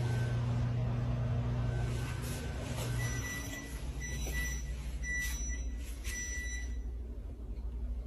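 A low steady hum, then from about three seconds in, a string of short electronic beeps like a vehicle's reversing alarm, spaced unevenly, ending about a second before the end.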